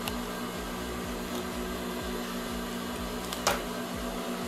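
Steady electric motor hum from an industrial sewing machine left running at idle, with one sharp click about three and a half seconds in.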